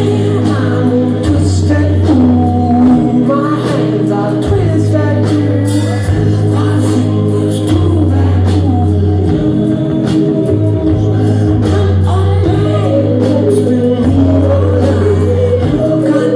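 A rock band playing live, heard from the audience: a sung melody over long held bass notes, keyboards and guitar, with a steady drum beat.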